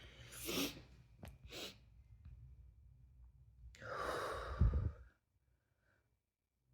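A person with the hiccups breathing and sighing: two short breaths with a brief sharp catch between them, then a longer sigh that ends about five seconds in.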